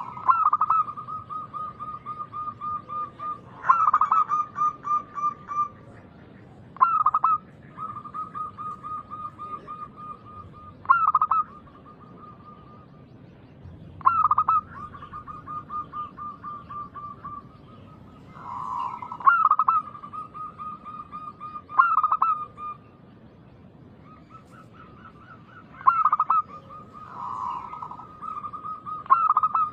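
Zebra doves (perkutut) cooing. Each phrase opens with a loud note and runs into a long, rapid string of soft pulsing coos, and the phrases repeat every three to four seconds.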